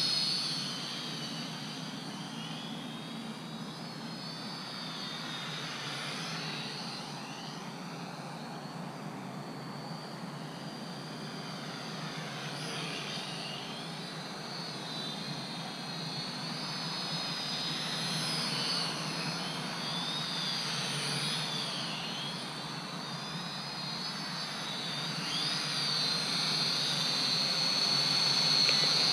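Helicute H818HW quadcopter's electric motors and propellers whining in flight, the high pitch wavering up and down as the throttle changes. The whine fades as the drone flies off and grows louder again as it comes back close near the end.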